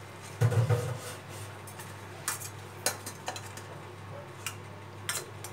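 Metal spatula clinking and scraping against a perforated stainless-steel steamer plate: a cluster of light knocks in the first second, then scattered single clinks. A faint steady low hum runs underneath.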